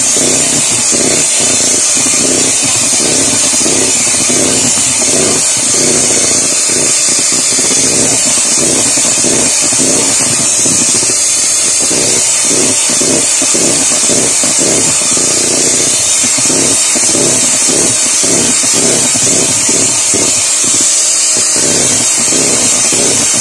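Electric hand mixer running steadily at speed, its beaters whipping a white cream in a stainless steel bowl, with quick uneven knocks of the beaters against the bowl.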